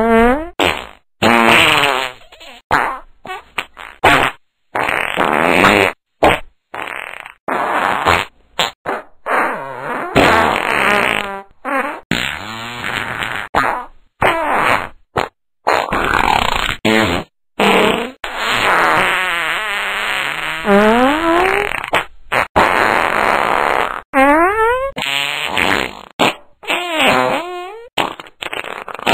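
A rapid series of fart sounds, one after another, short and long, some with a rising or falling squeaky pitch, each cut off abruptly.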